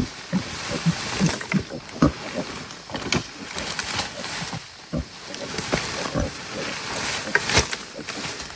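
Dry leaves, twigs and branches rustling and crackling as they are heaped and pressed down by hand, with frequent sharp snaps of small sticks.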